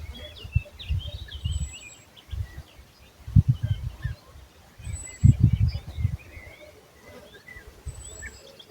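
Several birds chirping and twittering in an outdoor soundscape, with a short, thin, very high note repeating about every three seconds. Irregular low rumbles from wind buffeting the recorder's microphone are the loudest sound, peaking twice midway.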